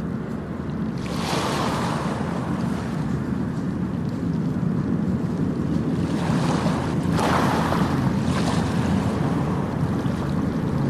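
Sea surf washing onto a beach, swelling about a second in and again more strongly around seven seconds in, with wind buffeting the microphone as a low rumble.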